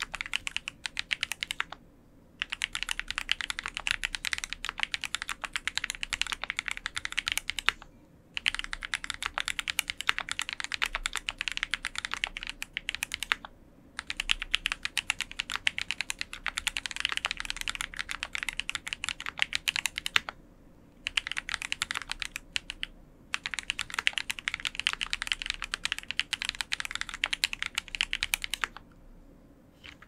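Fast typing on an F1-8X custom mechanical keyboard with Krytox-lubed Moondrop linear switches, GMK keycaps and an aluminium plate: dense runs of key clicks lasting several seconds, broken by brief pauses now and then.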